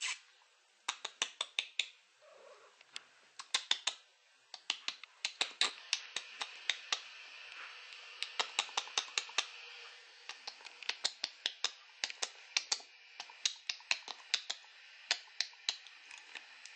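Scottish Fold kitten licking and chewing its paw: quick runs of sharp clicks, several at a time with short pauses between, stopping shortly before the end.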